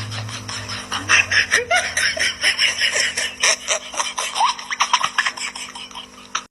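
People laughing in quick repeated bursts, tailing off near the end.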